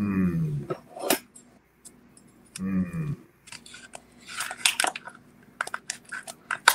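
A knife slicing and lifting out a piece of baked apple pie, with scattered sharp clicks of the knife against the pie dish. A voice gives two short exclamations with falling pitch, one at the start and one about three seconds in.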